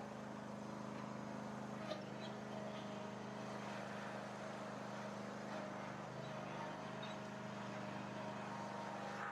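Riding lawn mower engine running steadily while towing a brick-weighted dirt grader.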